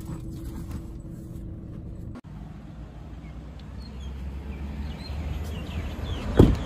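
A steady car-cabin hum, then after a cut birds chirping outdoors with wind rumbling on the microphone, and one loud thump near the end, a car door shutting.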